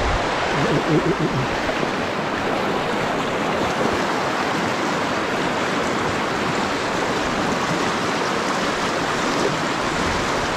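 Shallow mountain stream rushing over rocks in a riffle, a steady, even water noise.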